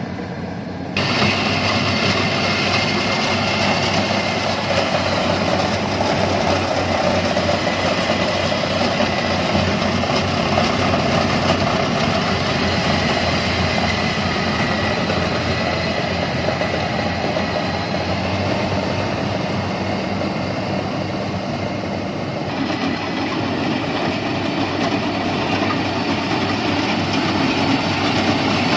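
Yanmar rice combine harvester running steadily: a continuous engine drone under rattling machinery noise. The sound gets louder suddenly about a second in.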